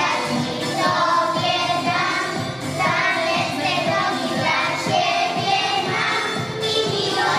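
A group of young children singing a song together in Polish.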